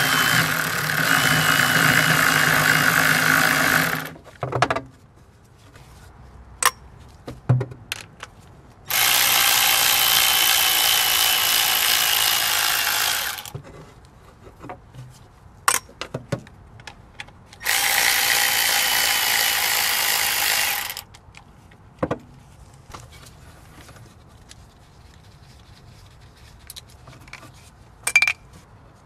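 Milwaukee M12 cordless 3/8-inch electric ratchet running three times, about four seconds each, with a steady high motor whine as it backs out the 10 mm coil-pack screws one after another. Small clicks and taps of the socket and hands come between the runs.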